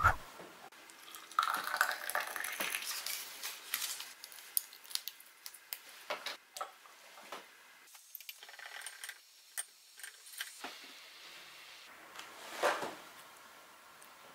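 Crinkling of a plastic blister pack as its paper backing is peeled off, then light clinks and taps of a metal spoon against a drinking glass of water, with a louder scrape near the end.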